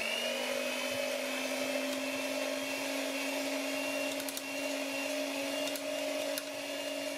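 Electric hand mixer with spiral dough hooks running at a steady pitch, stirring a thick dough in a stainless steel pot, with a few faint clicks.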